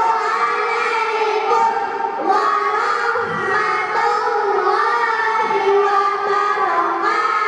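Group of children's voices singing or chanting together in unison, holding long, slowly changing notes.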